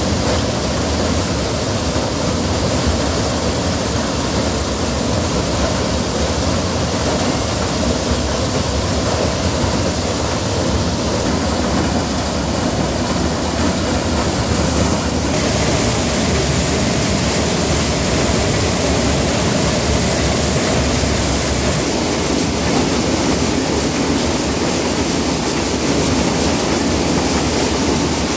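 Tractor-driven maize sheller and dehusker thresher running while threshing corn cobs, a steady dense mechanical rush. The sound turns brighter and hissier about halfway through.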